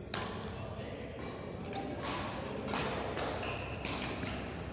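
Badminton rally: sharp racket strikes and footfalls echoing in a large sports hall, several hits a second or so apart.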